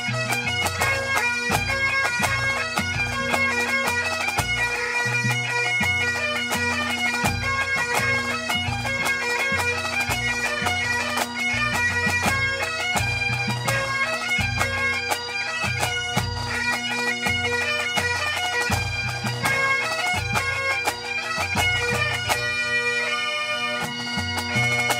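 A pipe band plays a medley: Great Highland bagpipes carry the melody over their steady drones, with drums beating under it.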